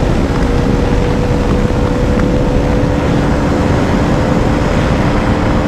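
Bajaj Dominar 400's single-cylinder engine pulling hard in fifth gear at high speed, its note almost steady and climbing only slowly as the bike accelerates. Heavy wind rush on the microphone underneath.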